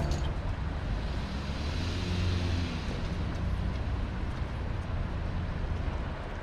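A car driving: steady low engine and road noise that swells slightly about two seconds in, then cuts off abruptly at the end.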